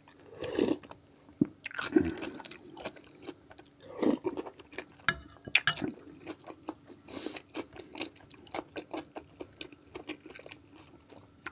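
A person slurping cold okroshka soup off a spoon, then chewing the mouthful close to the microphone with quick, wet, crunchy clicks. Two sharp clicks come about five seconds in.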